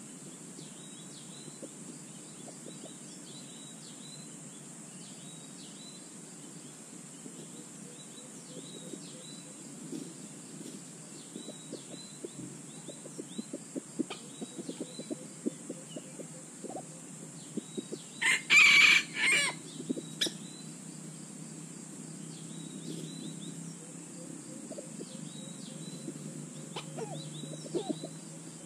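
A rooster crows once, a little past halfway through, loud and multi-part. Around it are small rustles and scratches in dry leaf litter and a steady run of repeated high chirps from insects or small birds.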